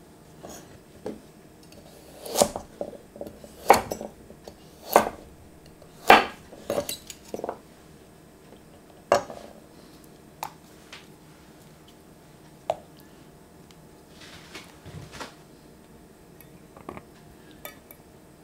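Carrot chunks and new potatoes dropped by hand one at a time into an oven-proof pot of cold water, each landing with a plop and a knock against the pot. About half a dozen louder drops come in the first half, with fainter ones later.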